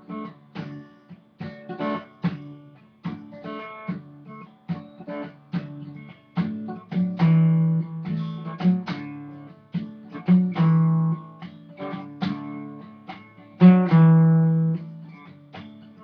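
Acoustic guitar playing a picked instrumental introduction, single plucked notes with a few louder chords ringing out.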